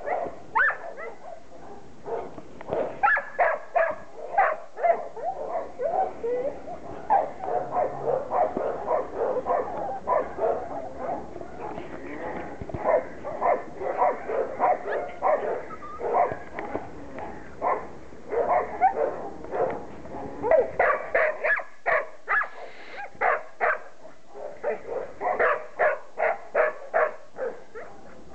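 Border Collie puppies, six weeks old, yipping and barking: many short, high calls in quick runs, coming thickest near the end.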